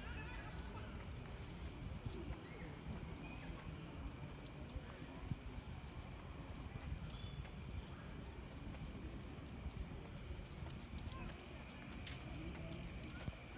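Night insects chirping steadily in high, pulsing trills, over a low, steady rumble.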